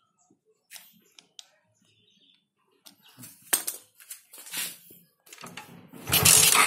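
Faint clicks and handling clatter, then from about five seconds in a small carburetted motorcycle engine with a Crimpie aftermarket exhaust starts up and runs loud.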